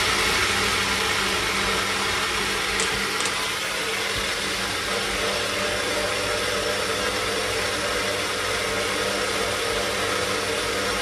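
Personal blender running steadily, its motor under load blending a thick smoothie of bananas, avocado and yogurt.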